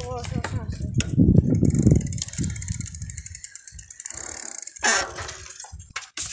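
Bicycle freewheel ticking rapidly as the bike rolls along, with a heavy low rumble on the microphone about a second in. A brief voice sounds at the very start.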